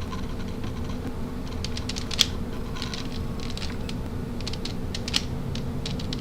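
Layers of a plastic DaYan ZhanChi 3x3 speed cube being turned, clicking and clacking irregularly as it is twisted to show its corner cutting. The clicks begin about a second and a half in, with a few sharper clacks.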